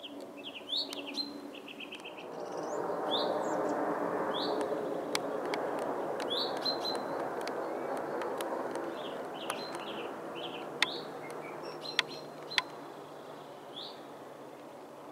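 Twin-engine jet airliner passing low overhead: a broad jet rumble swells about two seconds in, holds, then slowly fades away. Small birds chirp throughout, and three sharp clicks come in the second half.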